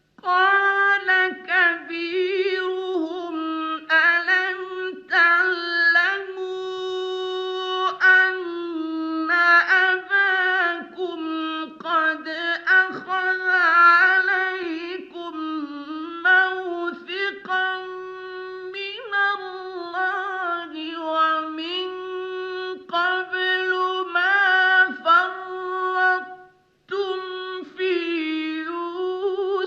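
A male Qur'an reciter's voice chanting long, ornamented melismatic phrases in a high register, in the mujawwad style of recitation. It breaks off for a short breath near the end, then goes on.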